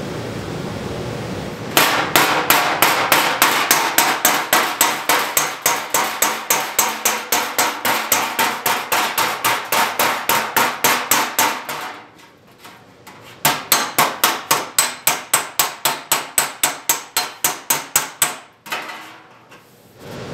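A hand hammer taps rapidly and evenly on a welded sheet-metal car body repair panel clamped in a bench vise, about four blows a second. The blows start about two seconds in, stop briefly a little past halfway, then carry on. The panel is being hammered flat to take the waviness out of its long butt weld.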